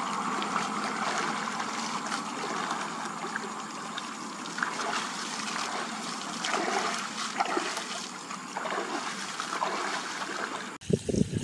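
Steady flow of water running through a drain ditch, with splashes as handfuls of water and debris are scooped and flung out of it. Near the end the sound changes abruptly to a few loud low thumps.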